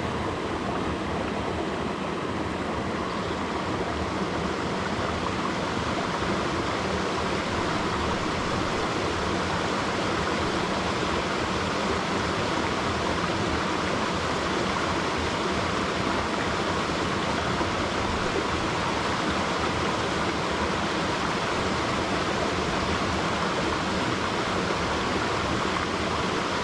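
Steady rush of flowing water from a creek or stream.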